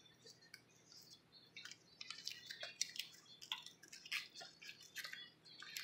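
Faint, scattered crinkling ticks of a foil-wrapped chicken bouillon cube being unwrapped by hand, starting about a second and a half in.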